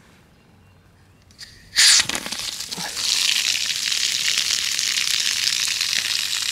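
Outdoor spigot on a galvanized standpipe opened: a sudden loud spurt a little under two seconds in, then a steady gushing stream of water pouring onto the grass. The valve is being run open to bleed air from the pump-pressurized rainwater irrigation line.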